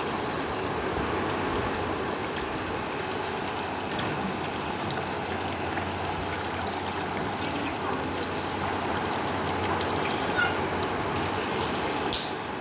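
Oil sizzling and bubbling steadily around a whole chicken frying in a steel pan on an induction cooker. A sharp knock sounds just before the end.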